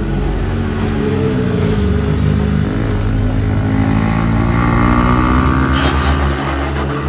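Sport motorcycle engines running hard through a bend, their pitch sliding down and up. About six seconds in, a scraping hiss as the TVS Apache RR 310 goes down and slides along the asphalt.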